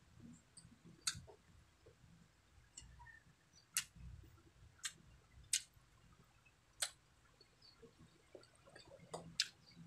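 Close-miked eating sounds: soft chewing of rice and fish with about seven sharp mouth clicks and smacks spread through.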